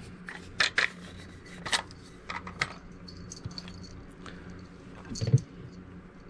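Sharp metallic clicks and taps of small tools against the steel parts of an Enfield rifle's action, several in the first three seconds, then a duller, louder knock about five seconds in. A low hum runs underneath.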